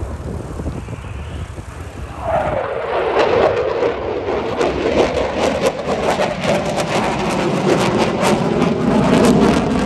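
Eurofighter Typhoon's twin Eurojet EJ200 turbofans in a display pass: a low rumble that swells suddenly about two seconds in to loud crackling jet noise, its tone sliding down in pitch as the jet goes past.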